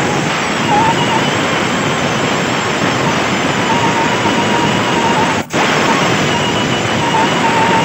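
Handheld die grinder with a round buffing stone running steadily against the rubber inner liner of a tubeless tyre: a loud hiss with a faint whine, cut off very briefly about five and a half seconds in. It is buffing the area around a puncture hole smooth to prepare it for a mushroom plug.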